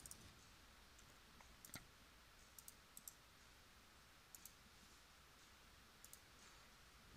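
Faint computer mouse clicks, singly and in pairs about once a second, over near-silent room tone.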